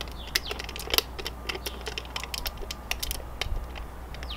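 Thin plastic wrap being peeled off the top of a new oil filter by hand, crinkling in small irregular clicks and crackles.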